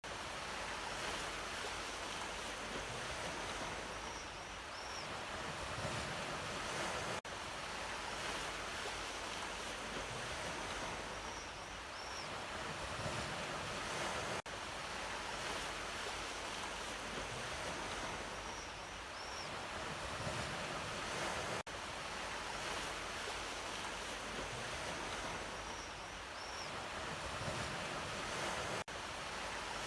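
Sea waves washing onto a shore in a steady surf. It is a short stretch of about seven seconds played in a loop, with a brief dip in level at each join and the same faint high double chirp once in every pass.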